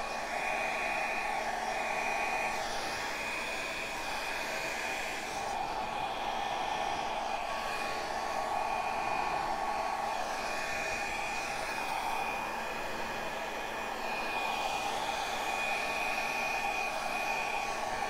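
Handheld hair dryer running steadily on wet acrylic paint, a constant blowing rush with a thin high whine, its level dipping slightly now and then as it is moved over the canvas.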